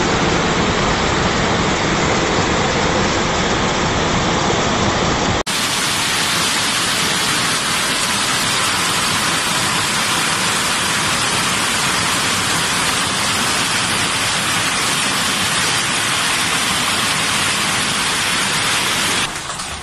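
Heavy hail and rain falling in a dense, steady roar, pelting the street and parked cars. About five seconds in the sound changes abruptly to a brighter hiss as one recording gives way to another.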